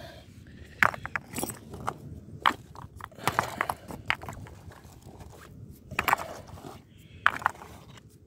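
Rustling and scraping of a fabric holdall being rummaged through by hand, with irregular sharp clicks and knocks scattered through.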